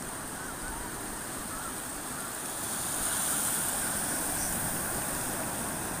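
Small sea waves breaking and washing up the sand at the water's edge, a steady rushing wash that swells a little about halfway through.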